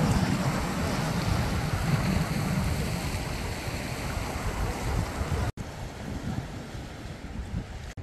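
Sea waves on the shore with wind buffeting the microphone in gusts. About five and a half seconds in the sound cuts off abruptly and resumes quieter.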